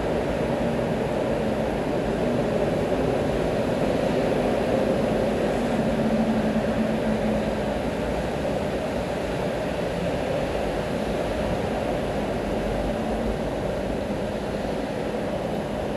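Steady city ambience in the rain: traffic rumbling and hissing along a wet street below, mixed with falling rain. A low engine hum swells slightly around the middle.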